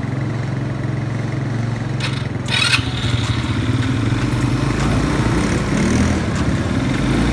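ATV (quad bike) engines running at idle, with a short rasping burst about two and a half seconds in and a deeper engine rumble growing louder in the second half.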